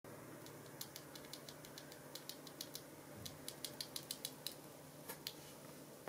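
Faint, quick plastic clicks, about twenty at uneven spacing and quickest after about three seconds, from a loose factory-lubed Ajazz Moon linear keyboard switch being handled between the fingers.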